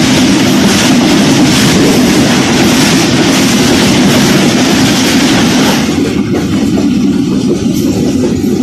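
Passenger coaches of a passing train rushing by on the adjacent track, heard from aboard a moving train: a loud rush of wheel and wind noise that drops away about six seconds in as the last coach clears, leaving the lower running rumble of the train being ridden.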